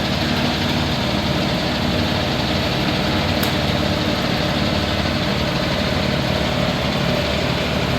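Grease milling and deaerating machine running steadily, an even motor hum with a steady tone.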